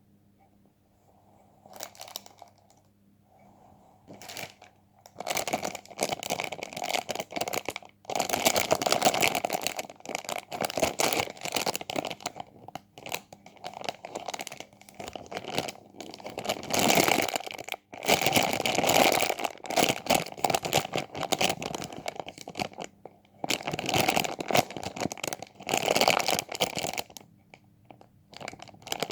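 Crinkly material being handled and crumpled, in bouts of dense crackling separated by short pauses, starting about five seconds in after a few faint rustles.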